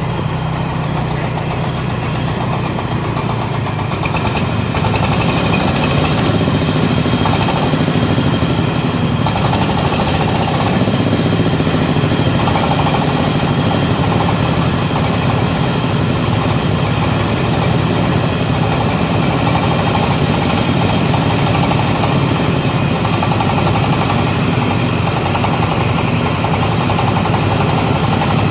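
Engine-driven corn sheller running with a steady engine note and a dense, fast rattle, growing a little louder about four seconds in.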